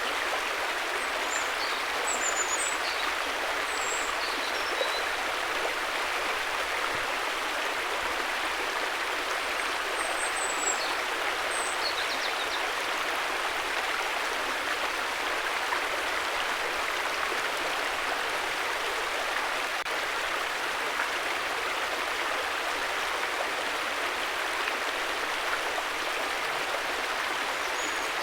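River water flowing steadily with an even rushing sound. A few faint high chirps come through over it in the first few seconds, again around ten to twelve seconds in, and near the end.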